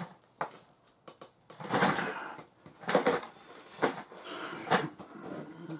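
Workbench handling noises: a few separate knocks and clunks of objects being moved and set down, with short bursts of rustling and scraping between them.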